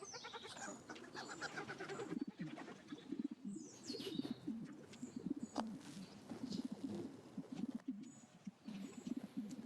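Pigeons cooing continually, with small birds chirping briefly now and then.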